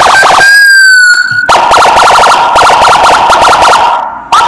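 CJB 200-watt electronic siren with a 110 BP sound chip, played through a horn speaker and switched between tones. A fast warble stops about half a second in and gives way to a brief steady tone. Then comes another fast warble of about eight pulses a second, and near the end a quicker rising-and-falling yelp starts.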